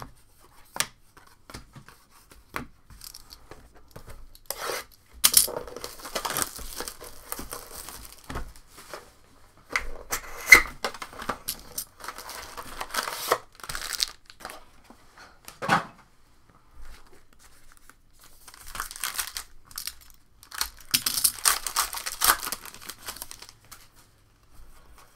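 Trading card pack wrappers being torn open and crinkled, in three spells of ripping and crackling with sharp clicks of card handling between them.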